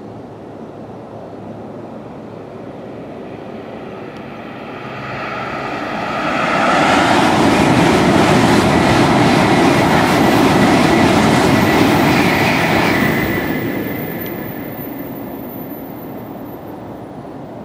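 Series 500 Shinkansen bullet train running past: a rushing sound swells over a few seconds, stays loud for about six seconds with a rapid even clatter, then dies away.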